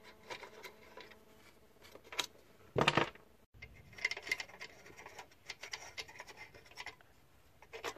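Close handling noise: fingers scratching and rubbing on the inverter's plastic terminal cover, with small clicks throughout and one louder bump about three seconds in.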